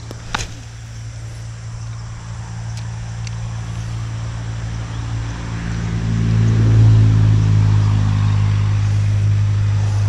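A low engine hum, steady in pitch, growing louder over the first six or seven seconds and then holding. A short sharp knock comes just after the start.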